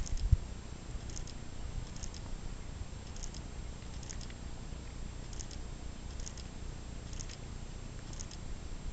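Curly horse trotting under a rider on arena sand: soft, muffled hoofbeats under a steady low rumble, with a faint high click about once a second.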